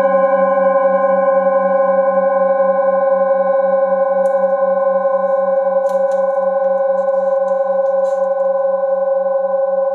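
Metal singing bowl ringing on after a mallet strike: several steady tones together, the lowest pulsing evenly as it wavers, all fading very slowly.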